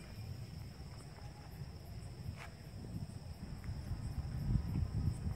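Crickets trilling steadily in one unbroken high note, over a low uneven rumble on the microphone that grows louder toward the end, with a single sharp click about two and a half seconds in.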